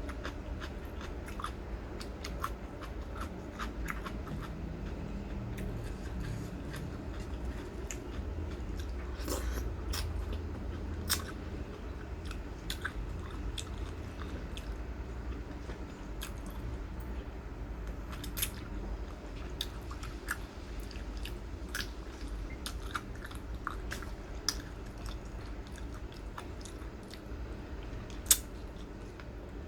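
A person chewing and biting crunchy food close to the microphone, with irregular sharp crunches throughout; the loudest crunch comes shortly before the end.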